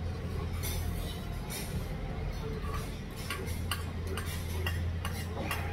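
Table eating sounds: metal spoons and chopsticks clicking and clinking against steel and earthenware bowls in scattered light taps, over a steady low hum.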